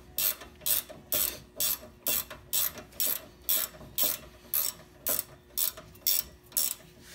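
Ratchet wrench clicking in even strokes, about two a second, as a brake caliper bolt is backed out.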